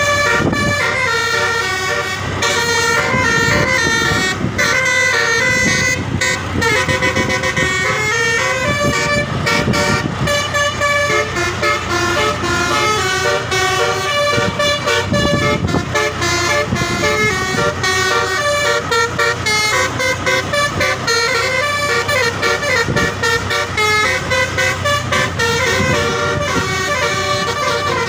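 Indonesian bus "telolet" horn, a set of multi-tone electric air horns, playing a long melodic tune whose notes step up and down without a break, over a low rumble.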